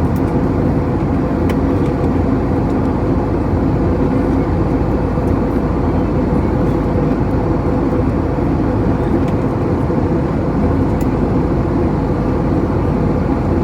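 Steady airliner cabin noise heard from inside at a window seat: the even rush of jet engines and airflow, with a low steady hum running through it.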